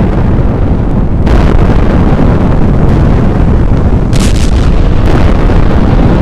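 Very loud, distorted rumbling roar that holds steady throughout, with a brief hissing burst about four seconds in.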